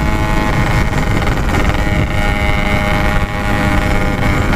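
Yamaha RX-King's single-cylinder two-stroke engine running at a steady cruising speed, heard from the rider's seat.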